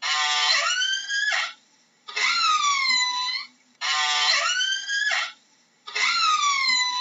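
Orca (killer whale) calls repeating about every two seconds, four in all, alternating between a buzzy call that ends in a rising squeal and a call that dips and then rises again.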